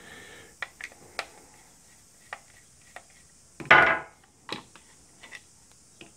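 Hand-handling of an electric golf trolley's metal leg bracket and plastic bush while dismantling it: scattered light clicks and knocks of metal and plastic, with one louder scraping rattle a little past halfway.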